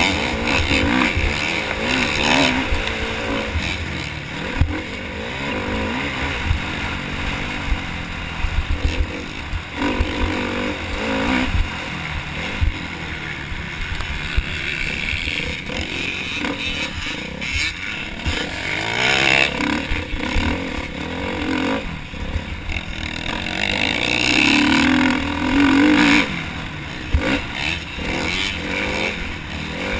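Motocross bike engine revving hard and backing off again and again through the turns and straights, heard through a helmet-mounted camera. Wind buffets the microphone, and scattered knocks come from the bike hitting bumps.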